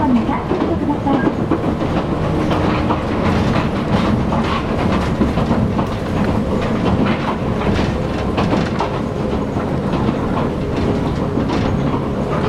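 Interior running noise of a Toyama Chihō Railway 10030 series electric train (ex-Keihan 3000 series) at speed: a steady rumble of wheels on rail with a rapid, irregular clatter of clicks.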